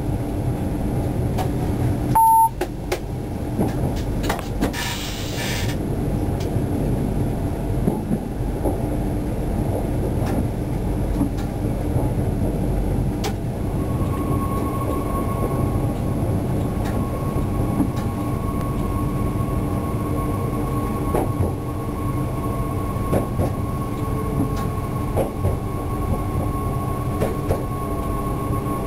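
Bombardier B 82500 AGC multiple unit running along the track, heard from inside its driving cab: a steady low rumble with scattered faint clicks from the rails. A short loud beep sounds about two seconds in, a brief hiss follows a few seconds later, and a steady whine sets in about halfway through.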